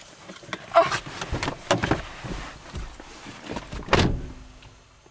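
A series of knocks and clattering bangs, the loudest about four seconds in, after which the sound dies away.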